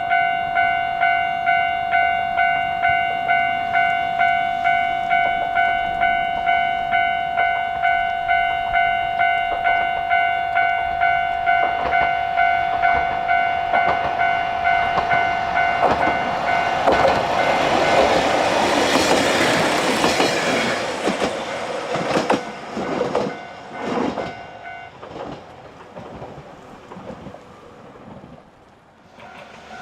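A Japanese level-crossing warning bell dings steadily and evenly. A train passes about halfway through: its rush builds, the wheels click over the rail joints, and the bell stops shortly after the train has gone by.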